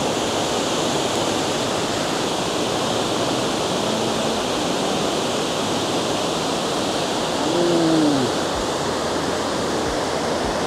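Loud, steady rush of water pouring over and churning below a spillway. About three quarters of the way through, a short pitched sound rises and falls over it, likely a brief hum or grunt.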